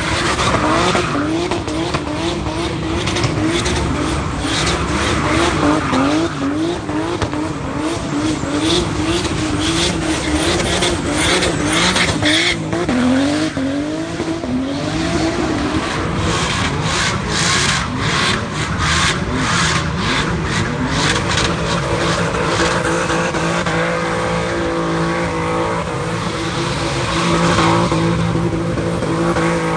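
Car doing a burnout on a street: its engine revs up and drops back in quick repeated sweeps while the spinning rear tyres squeal, settling to a steadier high-revving note near the end.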